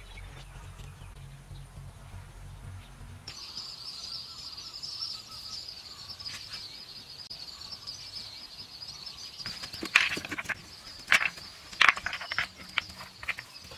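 Steady high-pitched chirring of outdoor wildlife that starts a few seconds in and keeps on, with several sharp knocks near the end.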